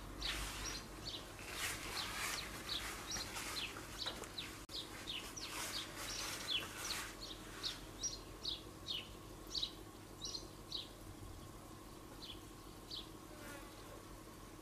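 Small birds chirping: a run of short, high, falling chirps, several a second, thinning out in the second half, over a faint steady hum.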